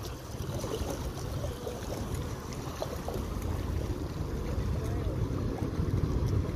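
Boeing 737 airliner's jet engines at takeoff power, a deep rumbling roar growing steadily louder as the jet rolls down the runway and lifts off, mixed with wind on the microphone.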